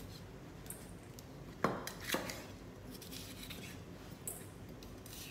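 Chef's knife cutting a yellow bell pepper on a plastic cutting board, trimming out the seeds and pith: light taps and scrapes, with two sharper knocks about two seconds in, half a second apart.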